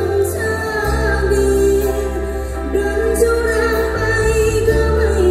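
A woman singing live with a band through a concert PA: a sung melody with long, gliding notes over sustained electric bass notes and drums.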